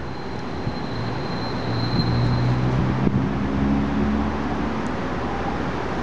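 Steady outdoor rumble with a low engine hum that swells for a few seconds in the middle and then eases off: a motor vehicle passing.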